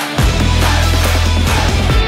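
Background music: a rock track with a steady heavy bass line and guitar.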